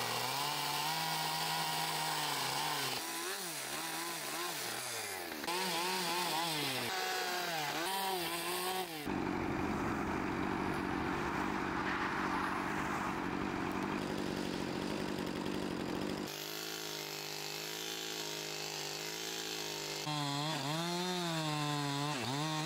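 Gas chainsaw cutting wood, its engine pitch rising and falling as the throttle is worked, in several abruptly joined takes. Past the middle it idles steadily for a few seconds, then revs up and down again near the end.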